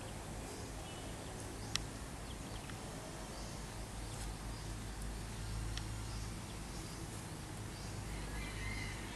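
Faint outdoor background: a steady low hum with a few faint high chirps, and one sharp click about two seconds in.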